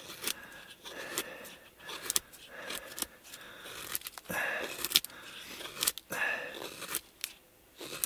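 Knife blade shaving thin curls down a stick of dry wood to make a feather stick for lighting a fire. The cuts come as a series of short scraping strokes, about one a second.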